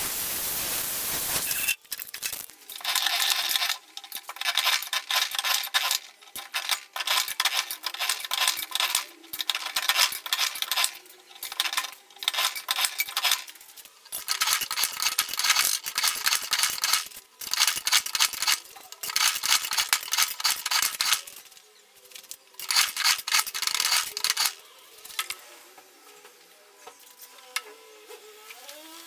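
A steady hiss that cuts off suddenly near the two-second mark, then repeated scraping strokes of metal on sheet steel, roughly one to two a second in runs with short pauses, as the steel is worked by hand. The strokes die away near the end.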